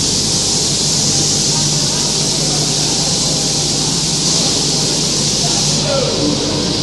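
Aluminium extrusion die blasting machine running: a loud, steady hiss of the abrasive blast jet, with a low steady machine hum underneath.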